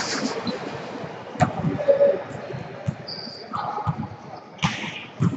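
Indoor volleyball game sounds in a gym hall. There is a sharp ball hit about one and a half seconds in, a short high squeak a little after three seconds like a sneaker on the court, and a burst of players' voices near the end.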